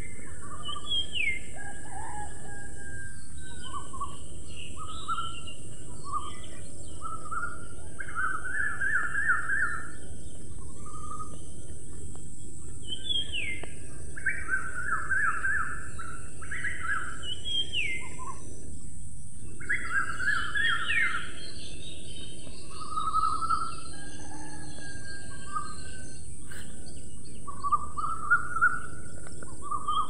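Several wild birds calling: short falling whistles and quick rapid trills, one after another at irregular intervals. Under them runs a steady background hiss with a thin high-pitched hum.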